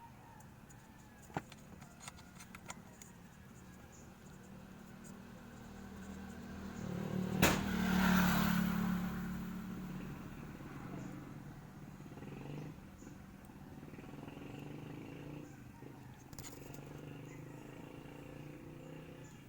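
A motor vehicle passes by, its engine swelling to loudest about eight seconds in and then fading slowly over the next few seconds, with one sharp click near the peak. A few light clicks come in the first three seconds.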